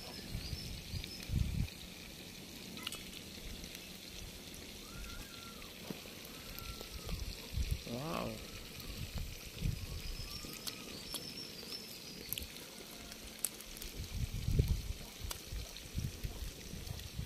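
Quiet outdoor background while fried fish is eaten by hand, with a few low thumps and handling noises. Faint, short high chirps come now and then. A brief rising vocal sound comes about eight seconds in.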